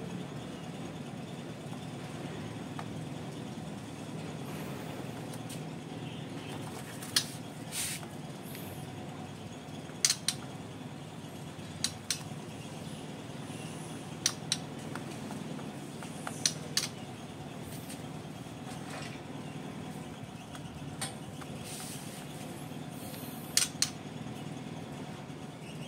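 Sharp, short taps, mostly in quick pairs every couple of seconds, from a caged white-rumped shama pecking at its floor tray and hopping about the cage, over a steady low rumble.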